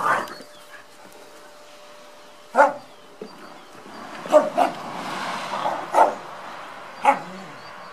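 Dogs barking while playing: short, sharp single barks, about six of them at uneven intervals.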